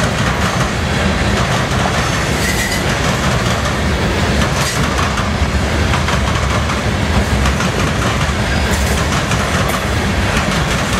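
CSX freight train cars rolling past at speed: a steady rumble of steel wheels on rail with clacking over the rail joints, and a brief high wheel squeal about two seconds in.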